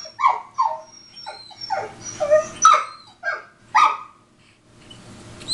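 Recorded dog yelping sound effect played from a computer: a quick run of short, high, falling yelps over about four seconds, then a pause near the end.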